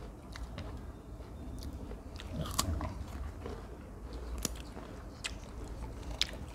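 Crisp crunching of raw jicama, with a few sharp snaps spread over several seconds.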